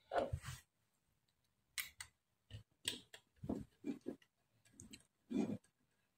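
Irregular small clicks and taps of a Phillips screwdriver turning the screws out of a Taffware V8S sound card's case, along with knocks as the unit is handled.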